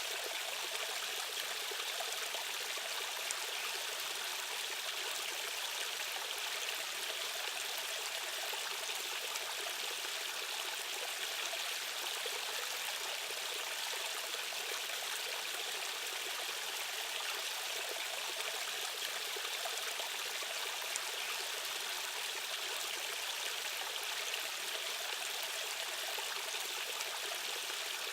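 Steady rushing water of a stream current, an even hiss of flowing water with no deep rumble.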